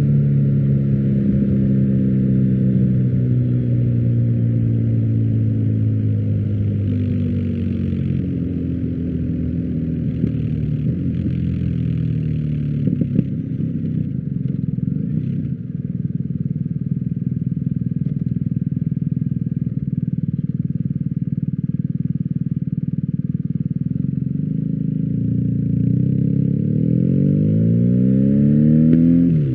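BMW R1250GS 1254 cc boxer-twin engine through an Akrapovic exhaust, running under way. Its pitch falls slowly at first, holds fairly steady, then climbs near the end before dropping sharply.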